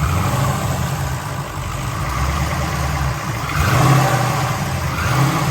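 LS1 stroker V8 running, revved up briefly about three and a half seconds in and again near the end. It is misfiring: a spark plug wire is arcing outside the cylinder, which the owner takes for the cause of his high-RPM misfire.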